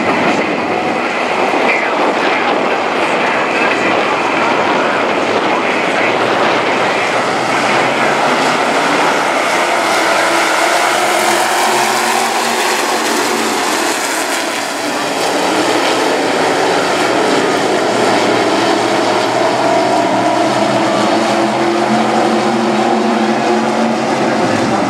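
A field of IMCA stock cars racing on a dirt oval, their V8 engines running hard in a dense, continuous roar. Around the middle, the engine pitch sweeps up and then falls away as the pack passes close by.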